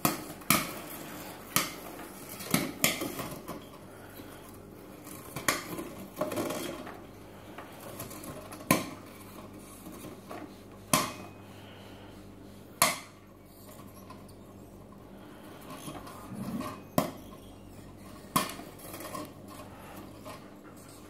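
Kettle popcorn maker popping corn: about a dozen sharp, scattered pops, one every second or few, as kernels burst in the metal kettle and hit the glass. Under them runs a steady low hum from the machine.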